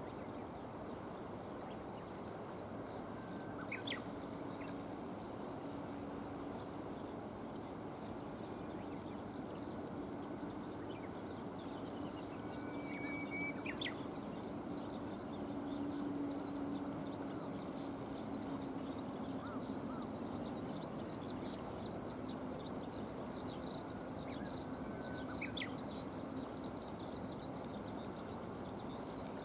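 Steady outdoor background noise with a faint low hum, broken by short bird calls about four seconds in, in the middle, and near the end.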